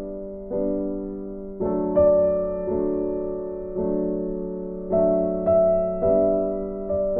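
Background music: soft piano or electric piano playing slow, sustained chords, each struck note slowly fading.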